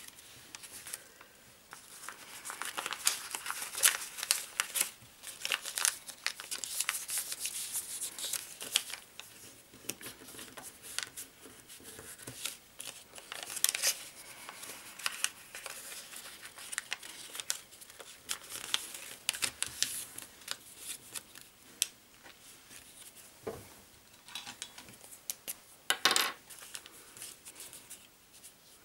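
A sheet of origami paper being folded and creased by hand: irregular crinkling rustles and short sharp crease sounds, with a louder rustle near the end.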